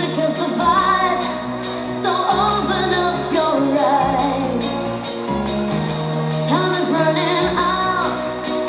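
Pop music with a woman singing over held bass notes and a steady beat.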